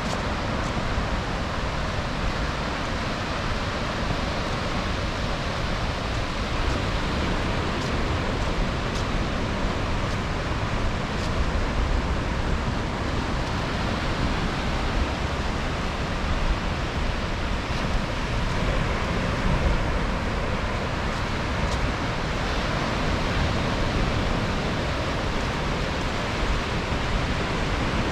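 Ocean surf washing on a beach: a steady, even rush of breaking waves with a low rumble underneath.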